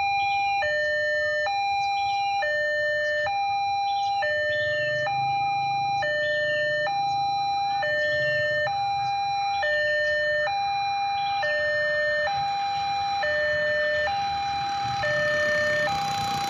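Railway level-crossing warning alarm sounding a steady two-tone hi-lo electronic signal, each tone held just under a second, warning that a train is approaching. A low rumble runs underneath and a rushing noise builds near the end.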